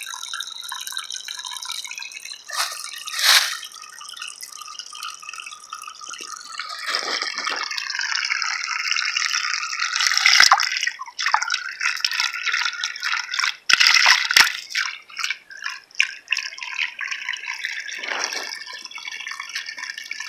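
Water trickling and dripping as it wells up and spills over the rim of a flowing artesian well pipe. About halfway through, a hand dips into the water and splashes, and the sound grows louder and busier with a few sharp splashes.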